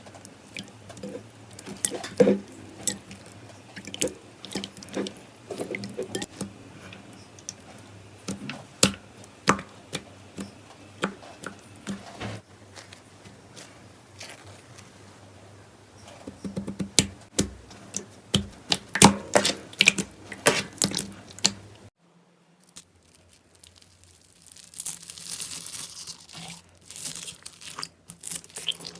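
Slime being played with: many sharp pops and crackles at irregular intervals, with a brief lull about two-thirds of the way through before the crackling resumes.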